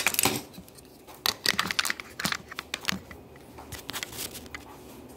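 Irregular small clicks, taps and rustles of objects being handled close to the microphone, with louder clicks about a second in and again around two seconds in.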